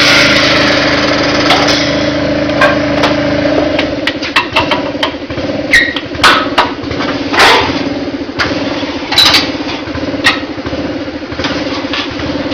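An air compressor runs steadily while a tire is worked onto a wheel rim, with scattered metal clicks and clanks and a few short hisses of air.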